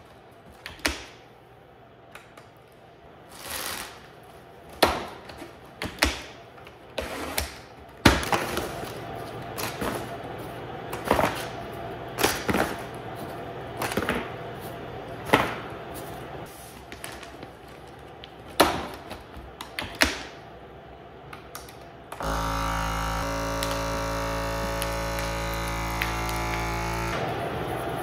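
A series of clicks, knocks and plastic-bag rustles as a FoodSaver vacuum sealer and its bag are handled. About 22 seconds in, the sealer's vacuum pump starts with a steady hum, runs evenly for about five seconds and stops.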